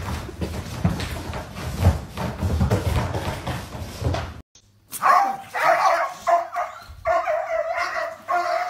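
Rough rustling and handling noise, then after a brief silence, a pet animal's repeated loud calls, several in a row with short breaks.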